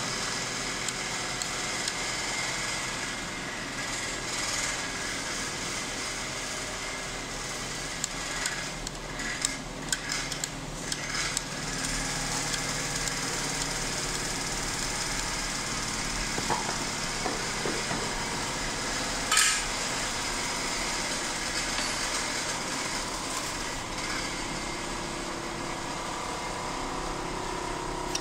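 Newlong portable bag-closing sewing machine running steadily with an even motor whine, with a few knocks about a third of the way in and a sharp click past the middle.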